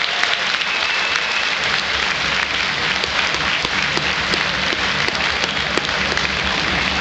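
Arena crowd applauding, a dense steady clatter of many hands clapping.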